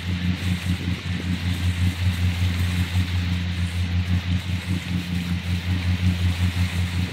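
Motorboat engine running steadily at towing speed, a low drone under the steady rush of the churning wake.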